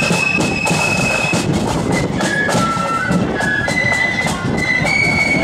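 Blood-and-thunder marching flute band playing a tune in unison on high flutes over rapid drumbeats. The melody holds high notes, dips lower around the middle, then climbs again.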